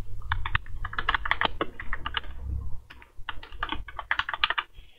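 Typing on a computer keyboard: quick keystrokes in two runs, with a short pause a little before three seconds in.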